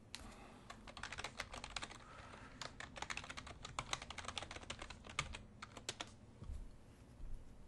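Typing on a computer keyboard: a fast, uneven run of key clicks that stops about six seconds in.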